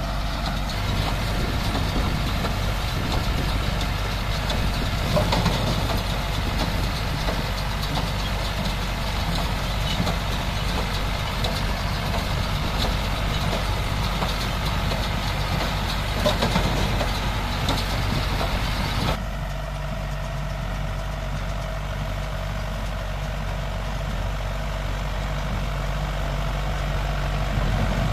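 New Holland TD90 tractor's diesel engine running steadily while it pulls a New Holland BC5050 square baler through rice straw, with the baler's mechanical clatter and hiss over it. About two-thirds of the way in, the hiss and clatter drop away and the engine note carries on.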